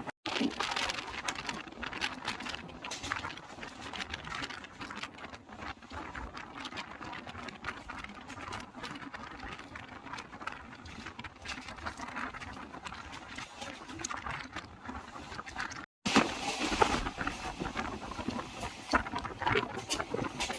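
Running noise of a moving passenger train: a steady clatter full of quick rattles and clicks. It breaks off for a moment about 16 s in and comes back louder.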